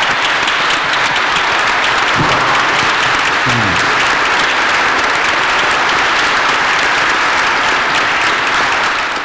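A large audience applauding steadily with many hands, dying away near the end.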